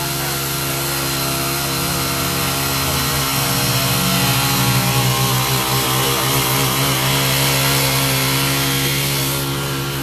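Small engine of a mini tiller (garden cultivator) running while its tines work loose garden soil. It grows louder and more uneven from about three seconds in, then eases near the end.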